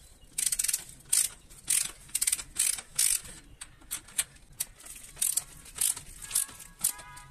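Ratchet pawls clicking at a bicycle's rear hub, in short bursts about twice a second as the mechanism is worked back and forth.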